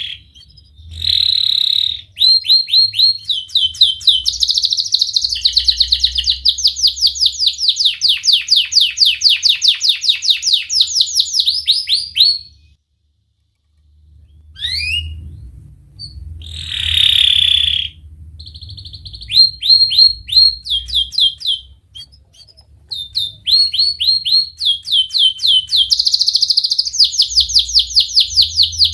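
Domestic canary singing a loud, fast song of sharp, closely spaced repeated 'wit-wit' notes run into long rolling trills, with a short pause about halfway before the trills start again.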